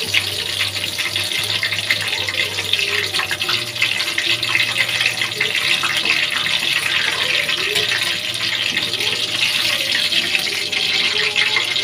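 Battered cabbage-and-chicken rolls deep-frying in hot oil in a karahi: a steady, dense sizzle and crackle. The rolls are fried golden and are being lifted out.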